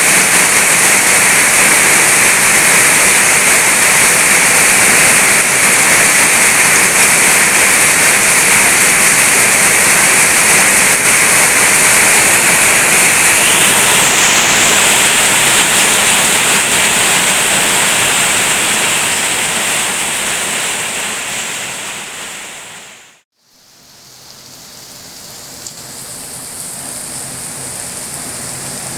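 Loud, steady rain making a dense, even hiss. About eighteen seconds in it fades away to a moment of silence, then fades back in as quieter rain.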